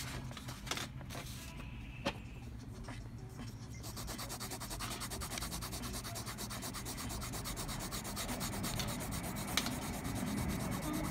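Graphite pencil shading on paper in fast back-and-forth strokes: a rapid, even, rhythmic scratching that sets in about four seconds in, after a few light taps.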